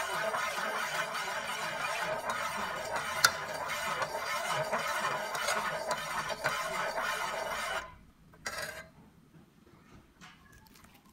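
Metal ladle stirring and scraping around an aluminium pot of energy drink being boiled down to make sugar, with a sharp clink about three seconds in. The stirring stops abruptly about eight seconds in, leaving only faint sounds and one brief knock.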